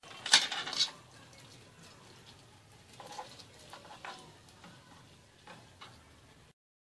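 A raw yeast doughnut on a square of parchment paper frying in hot oil in a deep pot: a louder burst of sizzling in the first second, then a steady low sizzle with small crackles.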